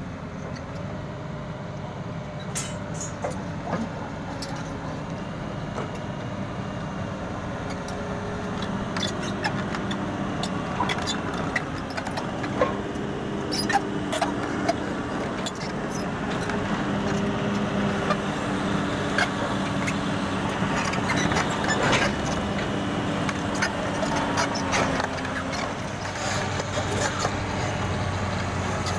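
Sany SR150C crawler-mounted rotary drilling rig travelling on its steel tracks: diesel engine running steadily with its pitch shifting, and frequent clanks and knocks from the track links.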